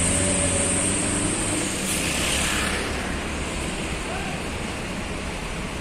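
A large coach bus's diesel engine running as the bus drives slowly down a ferry's bow ramp. A low engine hum is strongest in the first couple of seconds, then fades under a steady rushing noise.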